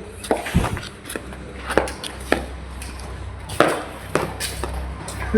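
Firecrackers going off in a string of irregular sharp cracks, about eight in a few seconds, the loudest two about three and a half seconds in and at the end, over a steady low rumble.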